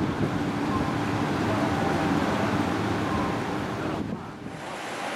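Wind buffeting the microphone over the steady rush of water churned up along a large steamship's hull, with a low steady hum from the ship underneath. The sound drops away briefly about four seconds in.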